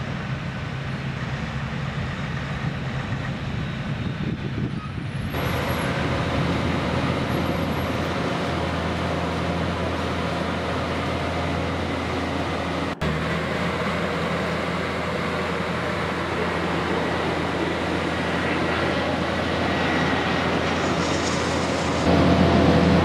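Heavy diesel machinery running steadily: a dump truck and an asphalt paver working, with a constant low engine hum. The sound grows louder about five seconds in and again near the end.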